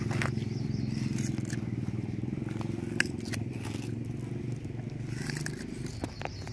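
A steady low motor drone runs throughout, under the small crunching, scraping and clicking of monkeys and a person eating fruit by hand, with one sharp click about three seconds in.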